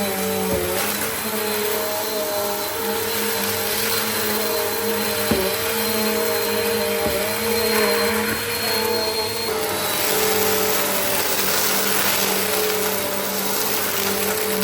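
Bissell CleanView compact vacuum cleaner running steadily: a motor hum with a high whine and a rushing hiss of air. There are a couple of faint knocks in the middle, and the tone shifts slightly about nine and a half seconds in.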